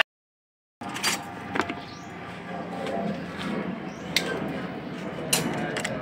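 A short dead gap, then scattered metallic clicks and knocks of hand tools being handled while working on a car's engine bay.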